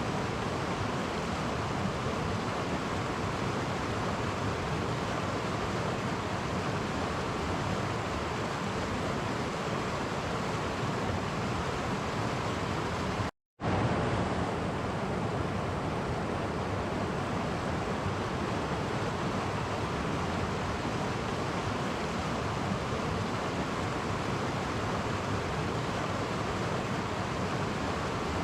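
Clear stream flowing over small cascades: a steady rush of water, broken by a split-second gap of silence about halfway through.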